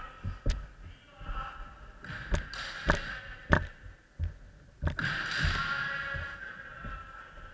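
Scattered sharp cracks and thuds of kendo echoing in a wooden-floored sports hall: bamboo shinai striking and feet stamping on the boards. About five seconds in comes a drawn-out shout lasting about two seconds.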